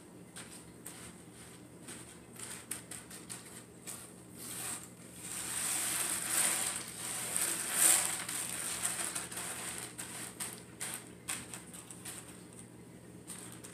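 Dry pinto beans being sorted by hand and dropped into a strainer: scattered small clicks, with a denser stretch of rattling in the middle that is loudest about eight seconds in.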